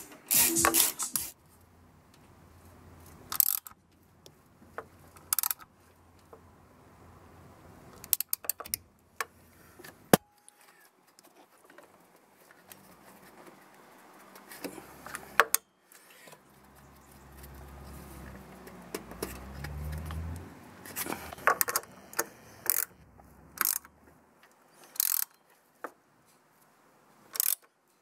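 Hand tools working the water pump pulley bolts of a Vauxhall Corsa 1.2 16v: scattered metallic clicks and clinks of a ratchet and socket against the pulley and bolts. A low rumble runs for a few seconds about two-thirds of the way through.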